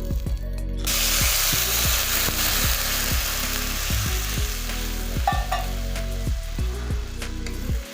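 Food frying in hot oil in a pan, the sizzle starting suddenly about a second in and carrying on steadily.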